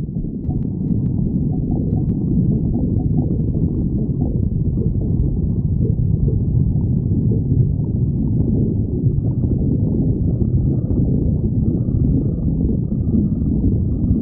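Stomach growling: a low, continuous sound with no breaks.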